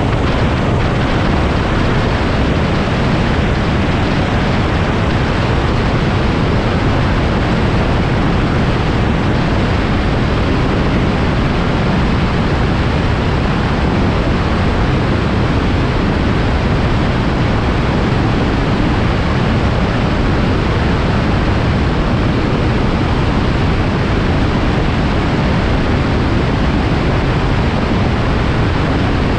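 Loud, steady rush of airflow on the microphone of a microlight in flight, an unbroken hiss with no clear engine note standing out above it.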